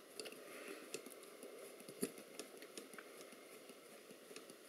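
Faint, scattered small metallic clicks and scrapes of a screwdriver turning a small screw in the accelerometer's metal frame, with a slightly louder click about two seconds in.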